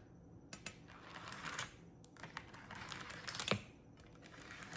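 Typing on a clicky wireless keyboard: soft, irregular keystrokes, with a sharper click about three and a half seconds in.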